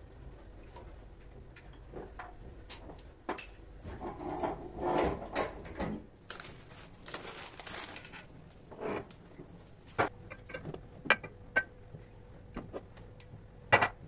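Jars and packets being taken off the shelves of a kitchen pantry cupboard: scattered clicks and knocks of containers against the shelves, a clatter about four seconds in, a rustle lasting about two seconds, and a few sharper knocks near the end.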